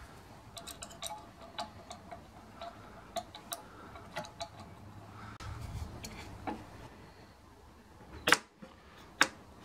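Small metal clicks and taps of parts being handled on a steel shaft adaptor fixed to a bandsaw motor shaft. Near the end come two sharp metallic knocks, a second apart, as an aluminium step pulley is slid onto the shaft.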